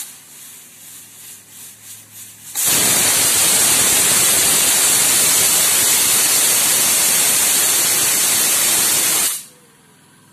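Stovetop pressure cooker blowing its first whistle: steam lifts the weight valve and rushes out in a loud hiss for about seven seconds, then cuts off suddenly, a sign that full pressure has been reached. Before it, a faint pulsing hiss.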